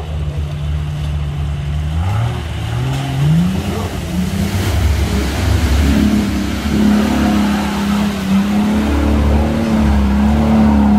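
A 4x4 off-roader's engine under load in deep mud: it holds a steady note, revs up over a second or two about two seconds in, then stays at higher revs.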